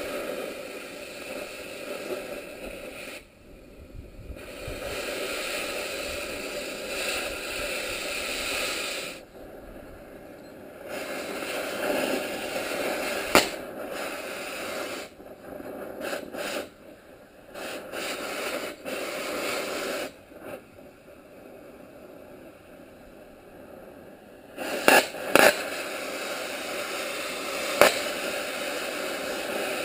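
Oxy-acetylene cutting torch hissing steadily as it cuts steel on a truck frame's front spring hanger, stopping and starting several times, with a few sharp pops, most of them near the end.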